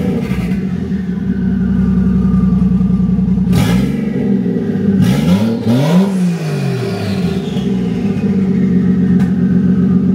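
Toyota 1JZ inline-six running through a straight-pipe exhaust with no muffler: a loud, rowdy idle, blipped a couple of times in the middle so the revs rise and fall back to idle.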